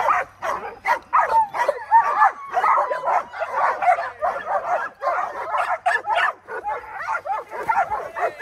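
A pack of dogs yelping and whining excitedly, many short high calls overlapping several times a second without a break, as they wait for a toy to be thrown into the pool.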